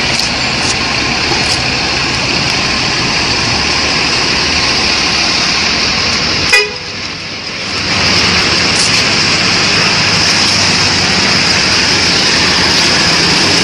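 Loud road noise from passing buses and traffic, with vehicle horns sounding. A single sharp knock about six and a half seconds in, followed by a brief lull before the noise picks up again.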